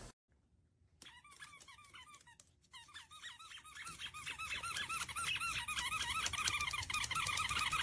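Short high squeaks repeated over and over, starting sparse about a second in and growing faster and louder until they run almost together near the end.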